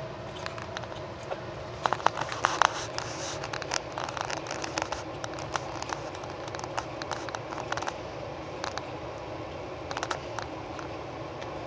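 Scratching and rustling of young bulldog puppies squirming over one another on carpet, with irregular small clicks that cluster about two seconds in and again near ten seconds, over a faint steady hum.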